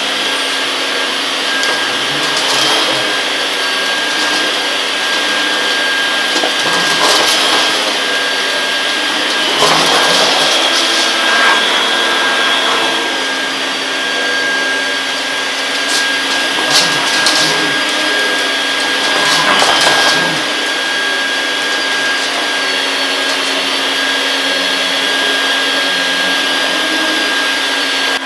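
Household vacuum cleaner running steadily with a constant motor whine, broken several times by short, louder noisy surges.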